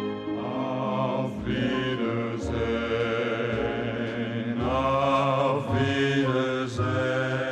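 Music with chanted, choir-like vocals and occasional percussive hits.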